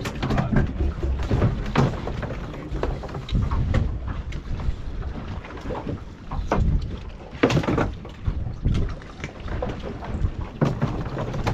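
Wind buffeting the microphone on an open boat, with water slapping the hull and scattered knocks and splashes. The loudest knock comes about seven and a half seconds in.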